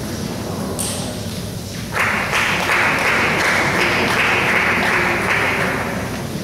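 A table tennis ball hit with a sharp click about a second in, then applause starting suddenly about two seconds in and lasting about three and a half seconds before fading.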